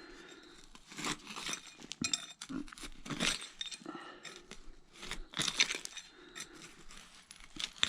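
A hand digger striking and scraping into soil full of old bottle glass, the blade knocking shards so they clink, in irregular strokes about once a second.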